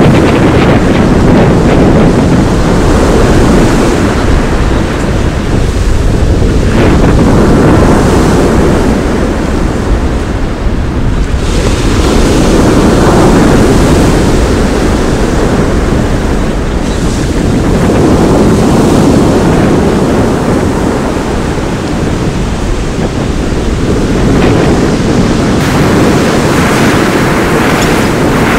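Sea waves breaking and washing onto a shingle beach, with wind buffeting the microphone; the rush of surf swells and eases every few seconds as each wave comes in.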